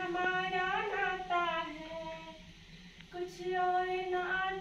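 A high female voice singing a slow, unaccompanied melody in long held notes, with a short pause for breath about two and a half seconds in.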